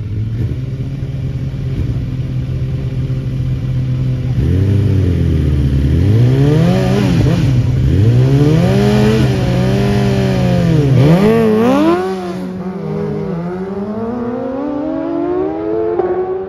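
Sport motorcycles at a drag-strip start line, idling and then revved up and down repeatedly while staged. About twelve seconds in they launch, and the engine pitch climbs steadily as they accelerate away down the strip, growing fainter.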